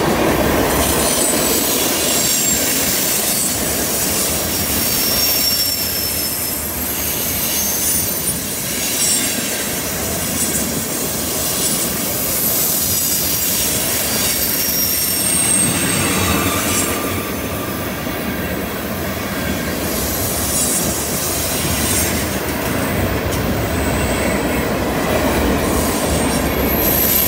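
Freight train cars rolling past on a curve: a steady rumble and clatter of steel wheels on the rails, with short high-pitched wheel-flange squeals coming and going.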